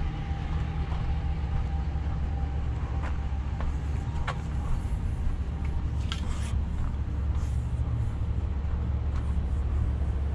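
Steady low rumble of idling vehicle engines, with a few light clicks and taps between about three and six and a half seconds in.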